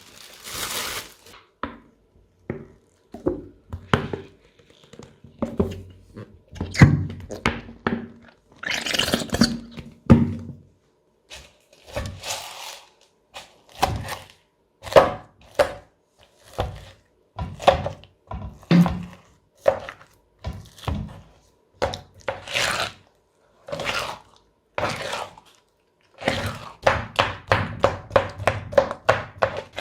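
Crunchy slime being pressed and squeezed by hand, crackling and popping in irregular bursts of sharp clicks with short pauses between, growing into a fast run of crackles near the end.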